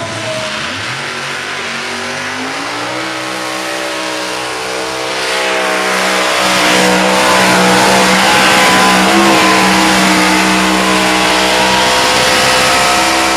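Race car engine revving up over the first few seconds, then held at high revs in one long steady note that grows louder about five seconds in.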